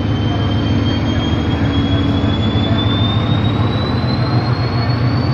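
SM42 diesel-electric shunting locomotive passing close at low speed, its diesel engine running with a heavy, steady low rumble. A thin high whine rises steadily in pitch throughout.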